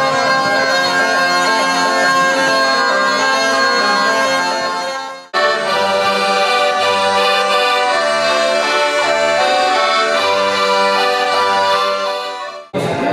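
Accordion playing a traditional folk dance tune, with a held bass under a moving melody. About five seconds in the music breaks off abruptly and picks up again straight away. Near the end it stops and voices take over.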